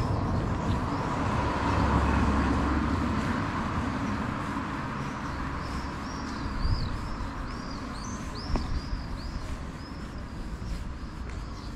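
A road vehicle passes, loudest about two seconds in and then fading. Birds chirp in quick, repeated short calls through the second half, with a single sharp click near the end.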